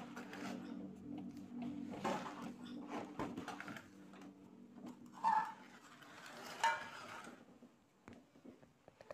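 Refrigerator compressor humming steadily at mains pitch just after being plugged in, with clicks and clattering of handling; the hum stops about five seconds in, around a sharp click.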